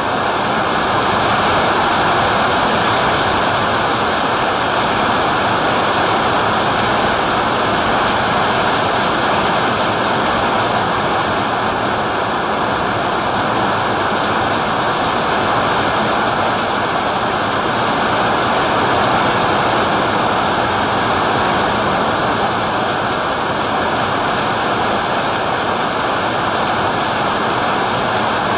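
Heavy rain pouring down in a thunderstorm, a loud, steady, even hiss.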